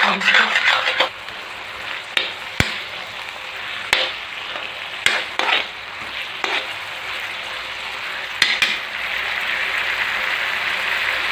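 Curd being stirred into a sizzling vegetable-and-tomato mixture in a kadhai, the stirring utensil scraping and clinking against the pan several times. The sizzle grows louder near the end as the mixture comes to a boil, and it is kept stirring so the curd does not split.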